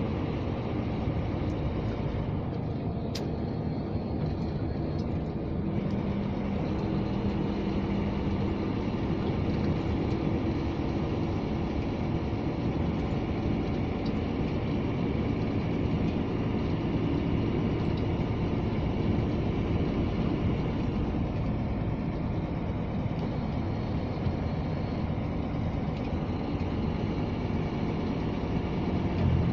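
Scania G460 truck's straight-six diesel engine running steadily while driving, heard from inside the cab together with tyre and road noise. A single click sounds about three seconds in.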